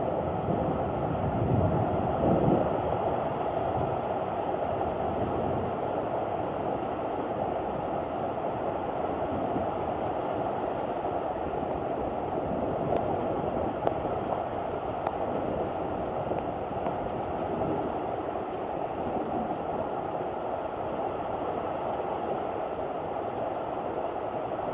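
Steady roar of a heavy thunderstorm downpour with storm wind, a dense unbroken rush. A louder low rumble swells about two seconds in.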